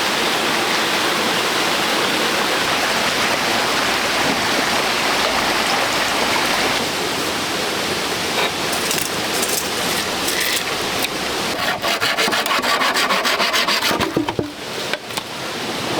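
Steady rushing water, then from about halfway in a hand tool rasping on wood in quick repeated strokes, several a second.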